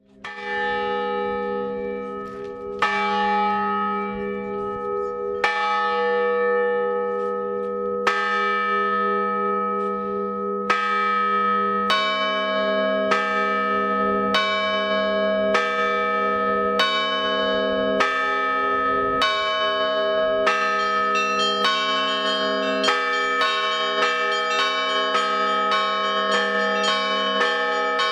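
Orthodox church bells being rung by hand from their ropes. Single strikes with long ringing come about every three seconds at first, then about once a second, and in the last third smaller, higher bells join in quick succession.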